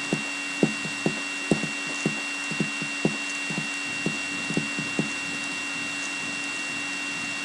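A series of light taps, about two a second, that stop about five seconds in, over a steady electrical hum.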